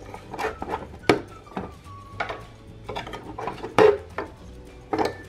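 Hard plastic Play-Doh molds being pulled off and handled on a plastic toy play set: a series of light clicks and knocks, about eight over five seconds, the loudest a little before four seconds in.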